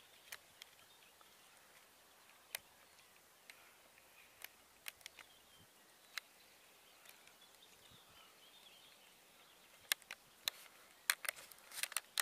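Faint outdoor lakeside ambience with faint distant birdsong, broken by scattered light clicks that come thicker near the end.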